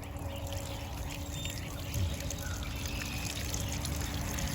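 Water from a garden hose running steadily, pouring and trickling.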